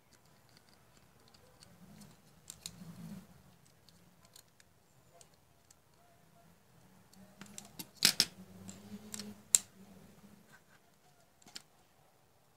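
Small screwdriver clicking and scraping against the screw terminals of a W1209 thermostat board, with light handling rustles; a cluster of sharp clicks a little past the middle is the loudest part.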